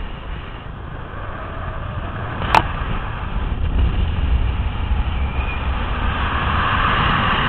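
Wind rushing over a camera microphone during a fast speed-flying glide, a steady rumbling roar that grows louder in the second half. A single sharp click about two and a half seconds in.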